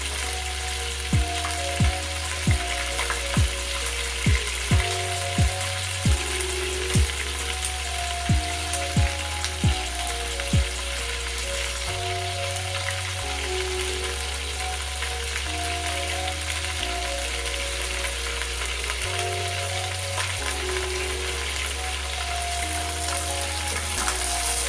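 Electronic background music with a bass line and a kick-drum beat that drops out about ten seconds in, over a steady frying sizzle.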